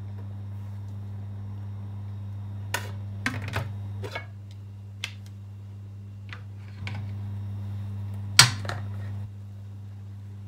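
Kitchenware clinking and knocking: a ceramic plate lid lifted off a pan, and metal tongs against the rim of a pot of steamed fish. A handful of separate sharp clinks, the loudest about eight seconds in, over a steady low hum.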